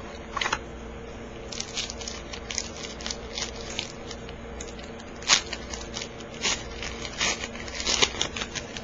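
Foil wrapper of a trading-card pack crinkling and tearing open, with irregular crackles and snaps throughout, the sharpest about five seconds in and around eight seconds, then cards being handled.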